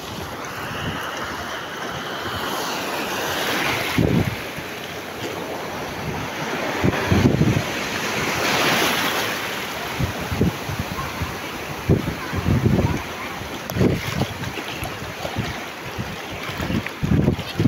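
Sea surf washing over a shallow rocky reef and breaking on the rocks, a steady rush that swells and eases. Wind buffets the microphone in short low gusts.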